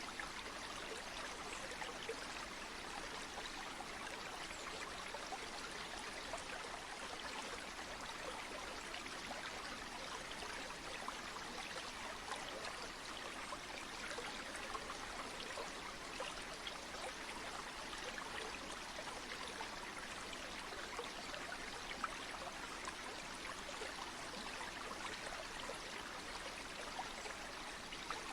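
Flowing water of a stream or river: a steady, even rush with many tiny splashes, unchanging throughout.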